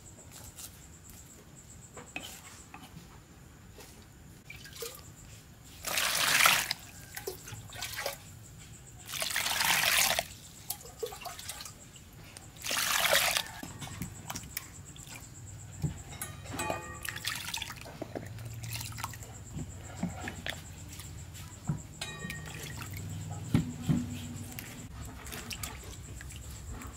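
Water splashing in three short loud bursts, then dripping and light splashing as spring onions are rinsed by hand in a plastic basin of water.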